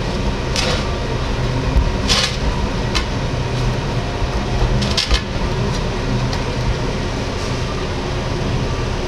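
Leopard tortoise's claws and shell scraping against the glass of its terrarium, four short scrapes in the first five seconds, over a steady low rumbling noise.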